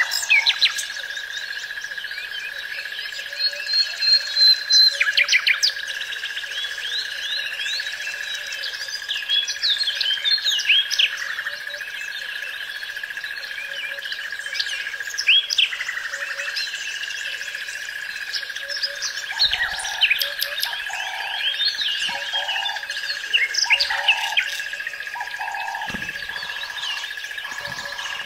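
Common nightingale singing: varied phrases of whistles, rapid trills and sharp chirps, over a steady high whine. In the second half a lower note repeats about once a second for several seconds.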